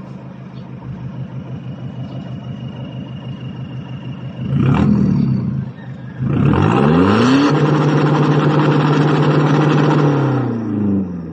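Toyota HiAce's 2KD four-cylinder turbo-diesel running through an exhaust fitted with a resonator and tips. It idles steadily, gets a short blip of the throttle about four and a half seconds in, then revs up, holds a steady higher speed for about three seconds, and drops back toward idle near the end.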